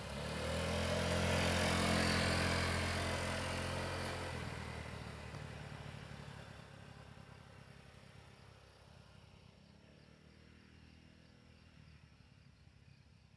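Honda Ruckus scooter's 49 cc four-stroke single-cylinder engine running as it passes close by. It is loudest about two seconds in, then fades away as the scooter rides off, dying out to a faint background by the second half.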